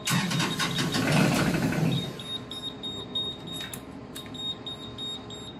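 Beta Marine 43 four-cylinder narrowboat diesel cranking on its starter motor for about two seconds without firing, because its fuel system still needs priming. When the cranking stops, the control panel's high-pitched warning buzzer beeps steadily again.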